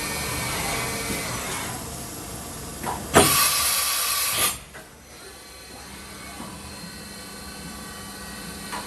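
Doosan MYNX Super NM 410 vertical machining center running with a steady mechanical hum. About three seconds in, a click is followed by a loud air hiss that lasts about a second and a half and stops sharply.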